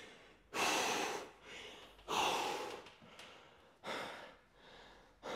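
A man breathing hard after an all-out set of weight training: deep, noisy breaths, the strongest about every second and a half, with softer breaths between.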